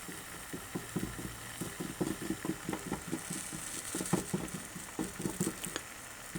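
Soldering iron working solder along a copper seam: flux and molten solder sizzling and crackling in many small irregular pops, over a faint steady hiss.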